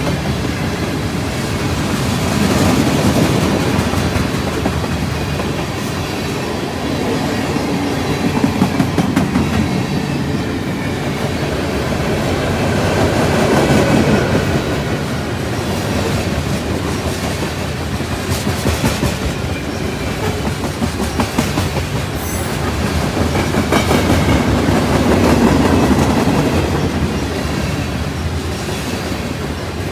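Freight train cars (tank cars, then covered hoppers) rolling slowly past, their steel wheels rumbling and clicking over the rail joints. The rumble swells and fades every few seconds as the cars go by.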